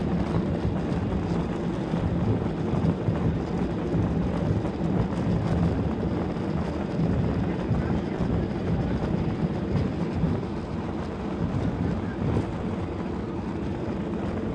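Cabin noise inside a Ryanair Boeing 737 taxiing: a steady low rumble from the jet engines at low thrust and the wheels rolling over the tarmac.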